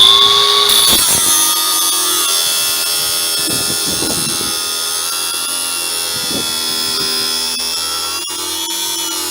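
A small electric motor switched on and spinning up, its whine rising over the first half second, then running steadily.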